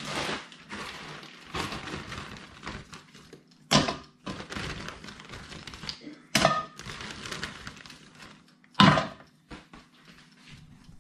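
Potato chips being placed into a non-stick air fryer basket beside a steak: noisy handling with three sharp knocks against the basket, roughly a third of the way in, past halfway and near the end.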